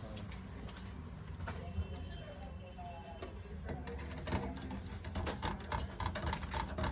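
Small clicks and ticks of a screwdriver driving motherboard mounting screws into a computer cabinet, sparse at first and coming thick and fast in the second half, over a steady low hum.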